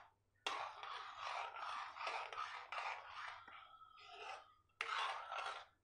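Spoon scraping and stirring thick tomato gravy against a metal pan, in runs of quick strokes with short pauses.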